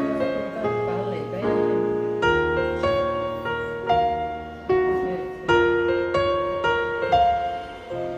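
Slow piano music: notes and chords struck about once a second, each ringing and fading before the next.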